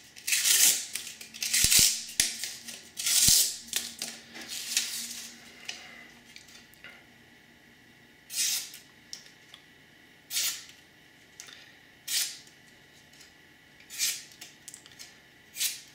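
A thin knife blade slices through corrugated cardboard in about four rasping strokes. Then come five short, crisp cuts about two seconds apart as the blade push-cuts strips of newsprint, a test that the stropped edge is still sharp after the cardboard.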